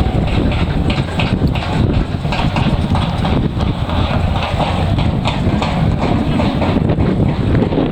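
Wind buffeting the microphone: a loud rumbling rush with irregular crackles.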